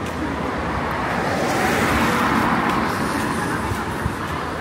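A vehicle passing on a city street: its tyre and engine noise swells to a peak about two seconds in and fades, over steady traffic rumble.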